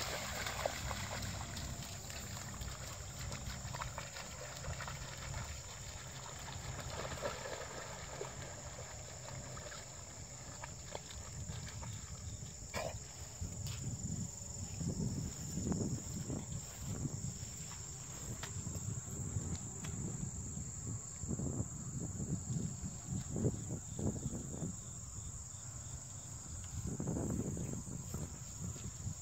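A steady high-pitched insect chorus from the field, over a low rumble that swells and fades in uneven gusts. At the start there is splashing as a dog runs through a flooded patch of grass.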